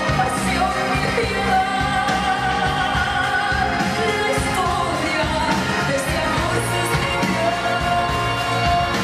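A pop song: a voice singing a melody with long held notes over steady instrumental accompaniment.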